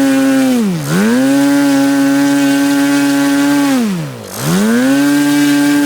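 OS 91 FX two-stroke glow engine with a 14x8 propeller running at high revs on a test run, its revs dropping sharply and recovering twice, about a second in and again about four seconds in. It is freshly rebuilt with new bearings and a new piston ring, and still set on the rich side.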